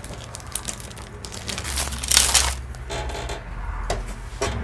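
Packets of beads and jewelry supplies crinkling and rustling as they are handled, with a louder crinkle about two seconds in.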